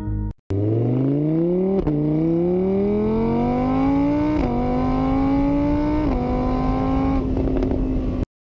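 Car engine accelerating through the gears: the pitch climbs, drops at each of three upshifts about 2, 4½ and 6 seconds in, then holds steady. It starts and cuts off abruptly.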